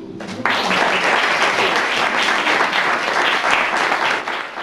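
An acoustic guitar chord dies away and, about half a second in, an audience breaks into steady applause.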